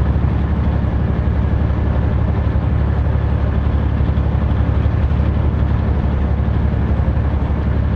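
Steady drone of a semi truck's diesel engine and road noise heard from inside the cab while driving.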